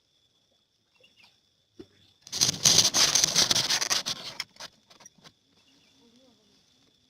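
A loud, dense burst of rapid pattering lasting about two seconds, trailing off into a few separate clicks.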